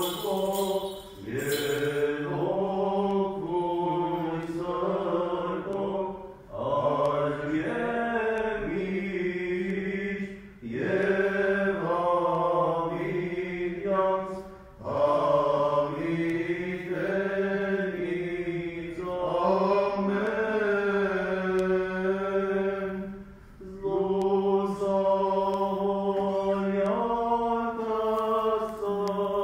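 A male voice sings Armenian liturgical chant without accompaniment. The notes are long and ornamented, and the phrases are separated by short pauses for breath.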